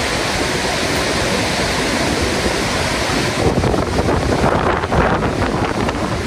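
Steady roar of the Skógafoss waterfall heard close up, with wind buffeting the microphone that turns gustier about halfway through.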